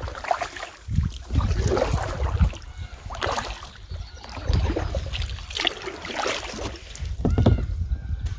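Kayak paddling through a narrow reed-lined channel: paddle strokes in the water about every second, with reeds brushing the boat and dull rubbing and rustling from the plastic pouch around the recording phone.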